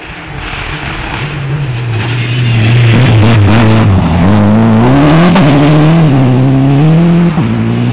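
Rally car at full speed, its engine revving hard as it comes closer and passes close by. The engine pitch rises and falls several times with gear changes and throttle lifts, and the sound cuts off suddenly at the end.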